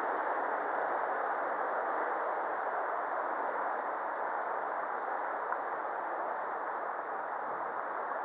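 Shallow river water running steadily over a stony bed.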